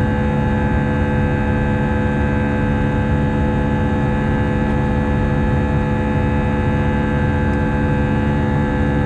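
Cabin noise of an Airbus A319-111 climbing after takeoff, heard inside the cabin: the steady drone of its CFM56 engines and airflow, with several steady humming tones over a low rumble.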